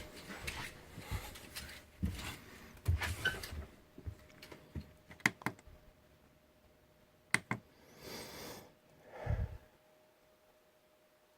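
Irregular rustling and scuffing handling noises, then a few sharp isolated clicks and a soft low thump, over a faint steady hum.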